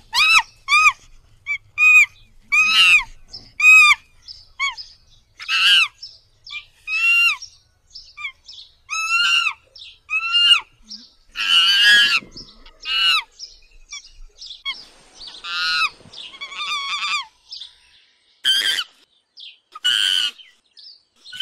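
Chimpanzees calling: a run of short, high cries that rise and fall in pitch, with a harsher, noisier outburst about twelve seconds in.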